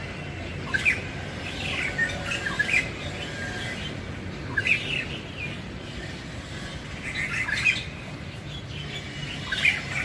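A shrike (pentet) singing in short bursts of quick, varied chirping notes, a new phrase every one to three seconds.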